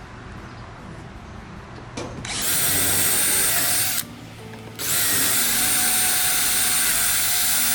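Electric drill drilling out the rivets that join a sailboat's deck to its hull: a short run of under two seconds, a brief pause, then a longer steady run of about four seconds.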